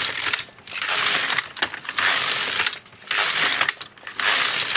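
Carriage of an LK100 plastic-bed knitting machine pushed back and forth across the needle bed: a rattling clatter over the needles on each pass, about four passes each lasting under a second, with short pauses between.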